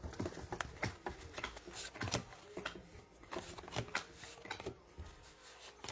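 Trading cards being flipped through by hand, one slid behind another, giving a run of soft, irregular clicks and slides.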